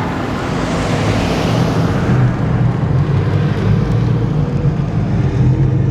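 Car engine running steadily with a low hum that firms up after about two seconds, while a hissing noise fades out over the first two seconds.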